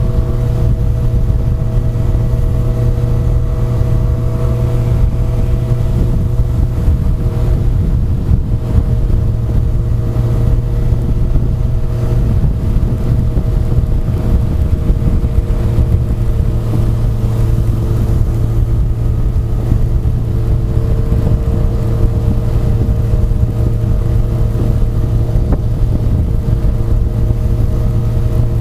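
Honda CBR1100XX Super Blackbird's inline-four engine running at a steady cruising speed, its pitch drifting only slightly, with wind buffeting the microphone.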